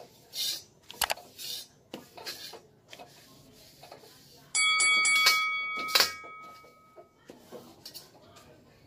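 Metal spatula scraping and tapping against a carbon-steel wok as oil is wiped around it with a paper towel. About four and a half seconds in, a bright bell-chime notification sound effect rings out and fades over about two seconds, with a sharp click partway through.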